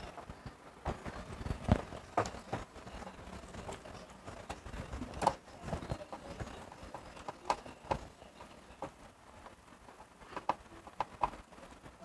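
Scattered clicks and light knocks of a long screwdriver turning screws into the plastic control-panel housing of an automatic washing machine, with the plastic board cover tapping as it is pressed into place.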